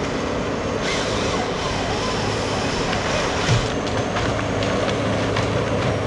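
John Deere 753G tracked harvester running steadily under load, its engine and hydraulics working with a constant low hum, with a few sharp knocks, the loudest about three and a half seconds in.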